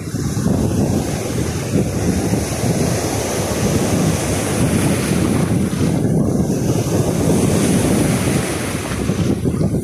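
Choppy sea waves breaking and washing onto the shore, with wind buffeting the microphone in a steady low rumble.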